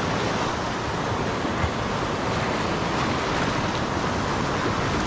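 Sea surf washing over a shallow reef and shoreline: a steady rush of breaking waves.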